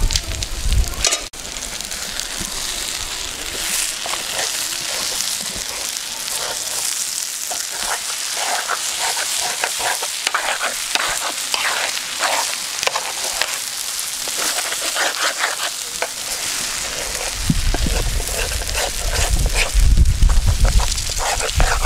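Soya chunks and scrambled egg sizzling in a frying pan, with a spoon stirring through them and scraping the pan in repeated short clicks from about four seconds in. A low rumble comes in near the end.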